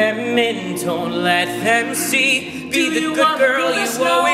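Male a cappella group singing in harmony: two lead voices carry a wavering melody over steady held notes from the other singers.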